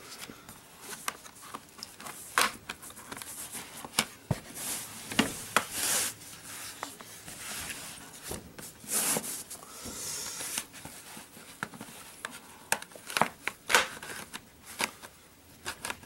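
Plastic clicks and scrapes of a guitar pick being worked along the seam of a laptop's plastic case to pry it open: many sharp ticks, with a few longer scraping rasps.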